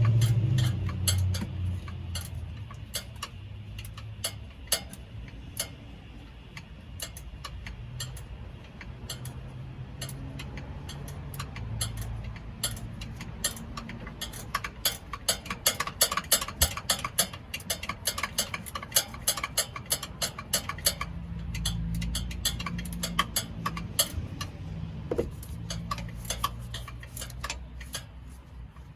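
Runs of sharp clicks at uneven spacing, thickest in the second half, over a low hum that fades in the first two seconds and comes back about three-quarters of the way through.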